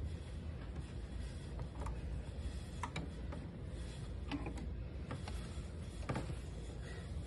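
Scattered clicks and light knocks as a vinyl record is handled and lifted off a portable suitcase turntable, over a steady low rumble.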